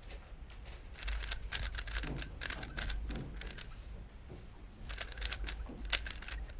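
3x3 speedcube being turned quickly by hand: bursts of rapid plastic clicking as the layers turn, with a pause of about a second and a half in the middle.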